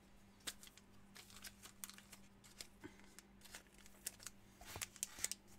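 Faint, scattered light clicks and taps of trading cards being handled and set down, over a low steady hum.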